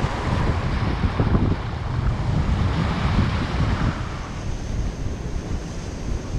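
Ocean surf breaking and washing over lava rocks, with wind buffeting the microphone in a gusty low rumble. The hiss of the surf wash eases about four seconds in.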